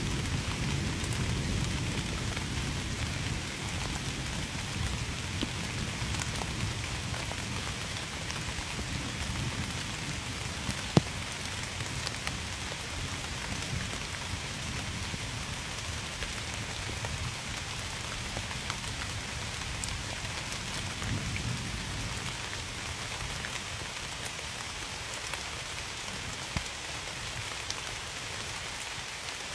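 Steady rain falling and pattering on a surface, with a low rumble of thunder in the first few seconds that fades away. A single sharp tick about eleven seconds in stands out as the loudest moment.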